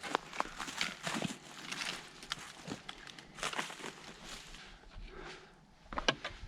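Hiking footsteps crunching and scuffing irregularly over rough mountain ground, with a louder sharp knock about six seconds in.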